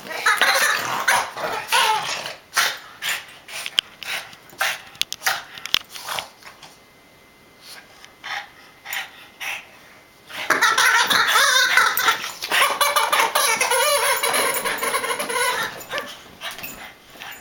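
Boston Terrier growling and barking in rough play over a toy. It comes in two loud bouts with a few quieter seconds between them.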